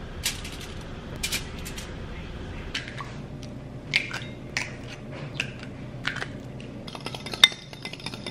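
Kitchen food-prep sounds: scattered taps and crinkles as raw bacon goes onto a foil-lined sheet pan and eggs are cracked into a ceramic bowl, then a quick run of clicks near the end as the eggs are beaten with a utensil against the bowl.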